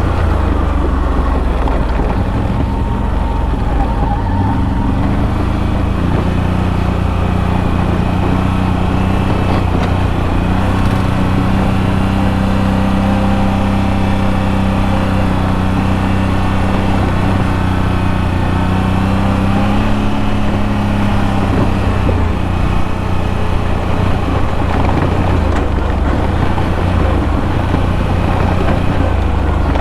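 ATV engine running steadily as the machine rides along a trail, heard close from the onboard mic. The engine note rises slightly about twenty seconds in, then settles.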